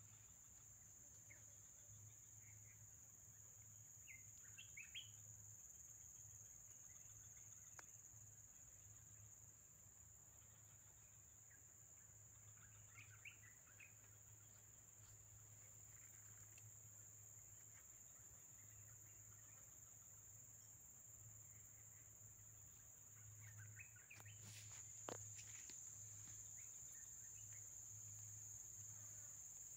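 Faint outdoor nature ambience: a steady high insect trill, like crickets, runs throughout, with a few short bird chirps about four seconds in, around thirteen seconds and again near the end.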